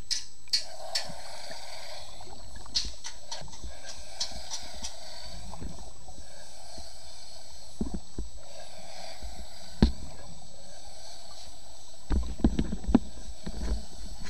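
Muffled water noise picked up by a camera in an underwater housing, with scattered sharp clicks, one sharp knock just before ten seconds in, and a cluster of dull knocks about twelve seconds in.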